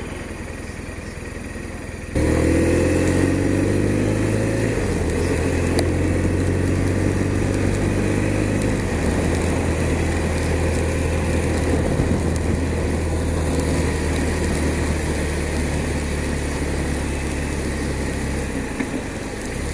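BMW R1200 RT's boxer-twin engine idling at a standstill, then pulling away about two seconds in. It revs up, with drops in pitch at gear changes about five and nine seconds in, then runs steadily at cruising speed.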